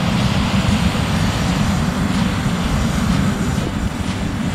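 Widebody jet airliner's engines running at taxi power as it rolls past close by, a steady low-heavy noise.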